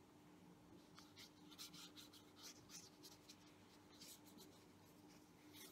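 Faint, scratchy strokes of a paintbrush rubbing watercolour paint onto textured paper, a quick run of short strokes from about a second in, over a faint steady hum.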